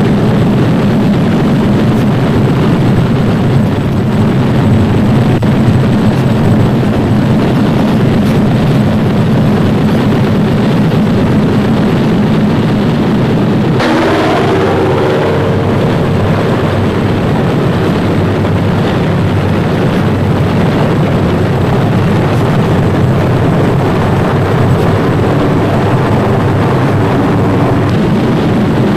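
B-25 bombers' radial piston engines running steadily as the planes taxi. About halfway through, the sound changes abruptly to a different engine note that shifts in pitch for a couple of seconds.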